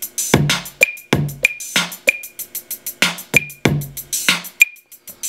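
Hip-hop drum loop from a Native Instruments Maschine drum machine, a dirty south style pattern of deep kicks, sharp snare or clap hits and fast hi-hat ticks in a steady groove. Extra hits are finger-drummed in on the pads over the programmed loop.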